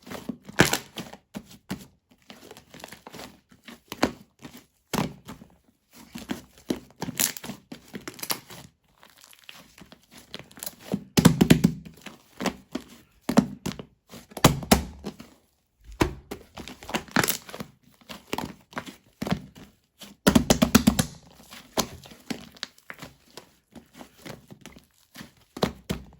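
Slime being pressed, stretched and folded by hand: irregular crackling and popping with soft thumps, loudest about eleven and twenty seconds in.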